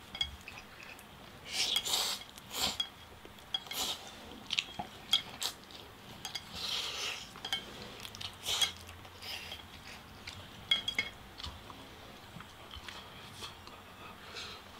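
Scattered light clicks and clinks of chopsticks and a metal spoon against plates and an ice cream tub, with quiet chewing in between.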